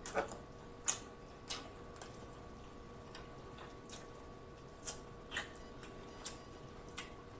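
Close-miked eating sounds: wet lip smacks and mouth clicks from chewing baked Cornish game hen and licking fingers, coming irregularly about one or two a second. A faint steady hum runs underneath.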